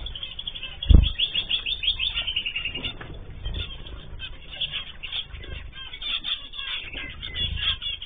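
Small aviary finches, zebra finches among them, chirping in dense rapid short calls, with wing flapping. There is a loud low flutter or bump about a second in.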